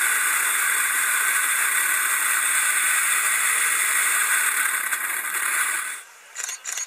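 Steady freefall wind noise on a skydiving camera's microphone, heard as playback from a screen. It drops away abruptly about six seconds in as the parachute opens, followed by two short rustles.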